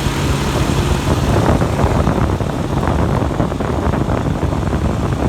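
Maruti 800's three-cylinder petrol engine idling, a steady low hum that turns rougher and noisier about a second and a half in.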